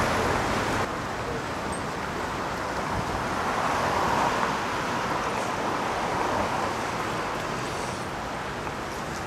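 City street traffic: a steady rush of cars driving past, swelling as a car passes close about four seconds in.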